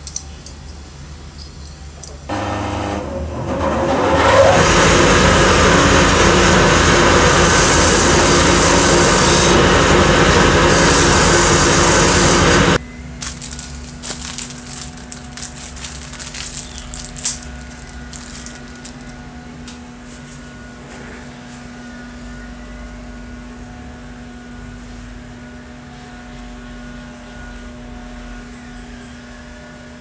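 A loud power tool starts about two seconds in, builds up over a couple of seconds, runs steadily for about eight seconds, then cuts off abruptly. After it, a quieter steady hum with a few scattered clicks.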